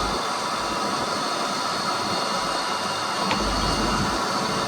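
Fishing boat's engine running steadily under a wash of wind and water noise, with a low rumble rising near the end.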